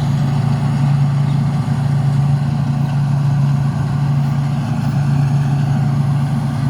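Diesel engine of a Thai Seng combine harvester running steadily under load while harvesting rice, a constant low drone with machinery noise above it.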